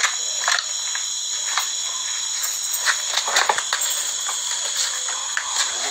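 Steady, high-pitched chorus of night insects, with scattered rustles and light knocks from the phone being handled.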